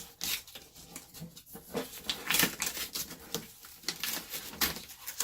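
Packaging being handled and opened by hand: irregular crinkling and rustling, loudest about halfway through.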